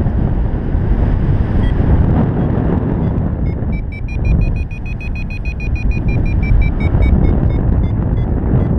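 Wind rushing over the camera's microphone in flight, loud and steady. From about three and a half seconds in, a paragliding variometer beeps rapidly, its pitch rising and then falling back. The beeping signals that the glider is climbing in rising air.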